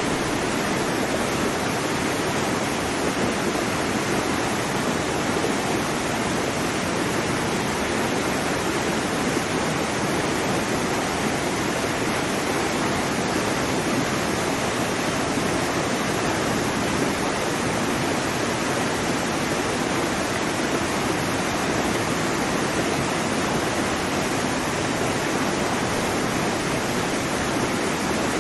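Waterfall: water falling and rushing in a steady, unbroken roar of white-noise-like sound with no changes.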